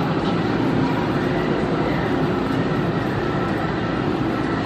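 Steady hum of an Enoden (Enoshima Electric Railway) electric train standing at the platform with its doors open, its onboard equipment running at a constant level with a few faint held tones.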